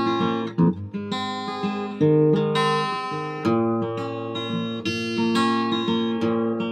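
Acoustic guitar playing an instrumental passage between verses, plucked and strummed chords with a new chord about every second or so.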